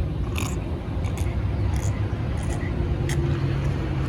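Steady low rumble of a car engine idling, heard from inside the cabin, with a few short scraping or clicking sounds scattered through it.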